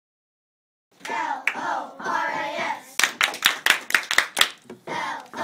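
A group of children's voices, then a quick run of about ten hand claps, about six a second, then the voices start again.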